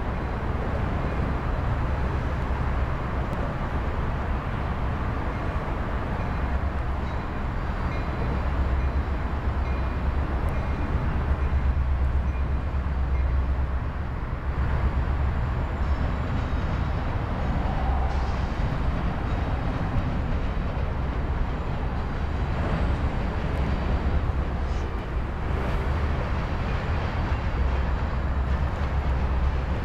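Two EMD diesel-electric freight locomotives, an SD70M and an SD70ACe, each with a 16-cylinder two-stroke 710 engine, running past with a steady, heavy low rumble, with covered hopper cars rolling along behind them near the end.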